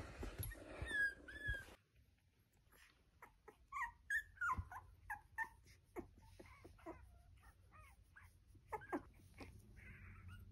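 Young puppies, about two weeks old, whimpering and squeaking in short, high cries scattered throughout, faint.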